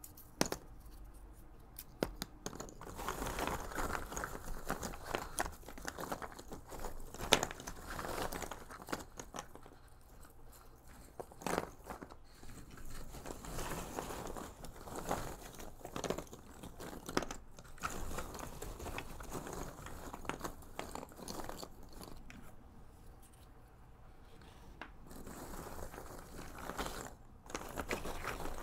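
Cardboard jigsaw puzzle pieces rustling and clicking against each other and the cardboard box as fingers rummage and stir through a heap of them. The sound comes in waves of dense rustle with sharp clicks, easing off for a few seconds before picking up again.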